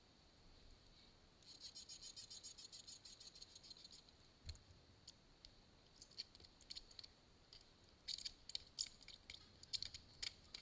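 Faint light clicking: a quick even run of clicks for about two and a half seconds, then scattered single clicks and small clusters.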